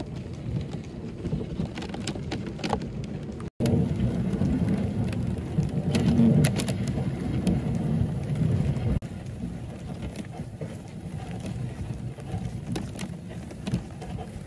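Reindeer-drawn sled moving over a packed snow track: a steady crunching, scraping noise from the runners with a low rumble of wind on the microphone. The noise drops out for an instant about three and a half seconds in and is quieter after about nine seconds.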